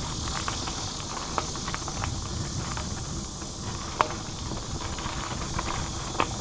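Mountain bike running fast down a steep dirt singletrack: tyres on dirt and a steady wind rumble on the bike-mounted microphone, broken by a few sharp knocks and rattles of the bike over bumps. The loudest knock comes about four seconds in.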